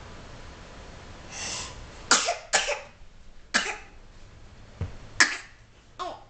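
A person's short, breathy vocal bursts, five or six of them at irregular spacing, with no music playing.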